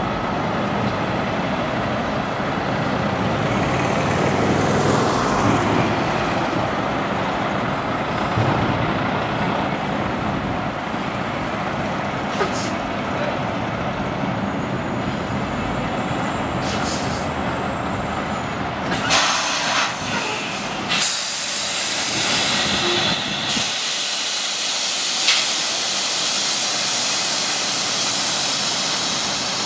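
Big-rig diesel engine of a Peterbilt 389 running at low speed while the truck is manoeuvred into a parking spot. About two-thirds of the way through come two short bursts of air-brake hiss. After that the deep engine rumble drops away, leaving a steady hiss.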